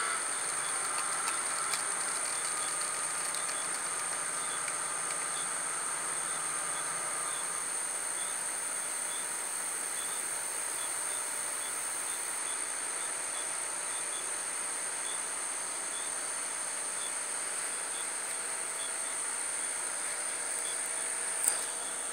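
Steady high-pitched insect chorus, with a distant engine drone underneath that fades out about seven seconds in. A single sharp click comes near the end.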